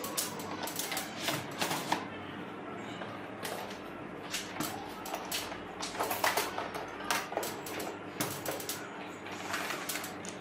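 Plastic drill-kit case being unlatched, opened and handled: a string of sharp plastic clicks and knocks, irregular, some in quick clusters.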